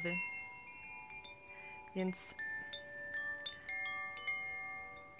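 Single notes plucked one at a time on a zither, each starting separately and ringing on so they overlap in a slow, unmetered stream of bell-like tones.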